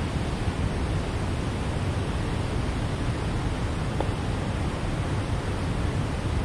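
Steady rushing noise of water spilling through the gates of a river dam, even in level throughout.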